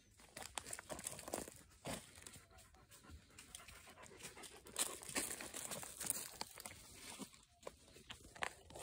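A dog panting, with scattered crunching and rustling sounds.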